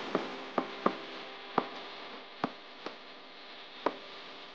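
About seven light, sharp taps at irregular intervals, from a silicone pastry brush working egg wash onto raw empanadas on a metal baking tray, over a steady background hiss.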